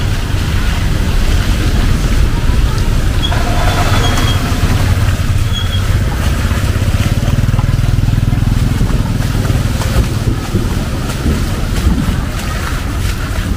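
Traffic on a rain-soaked street: a steady rumble of passing vehicles and motorbikes under the constant hiss of heavy rain.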